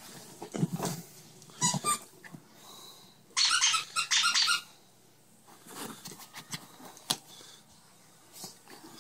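A Yorkshire terrier mouths a green plush squeaky toy, squeaking it in two quick runs of rapid high squeaks about three and a half seconds in. A couple of short dog growls or yaps come in the first two seconds.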